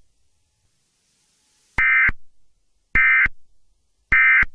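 Emergency Alert System end-of-message data bursts: three short, harsh digital beeps about a second apart, marking the end of the alert.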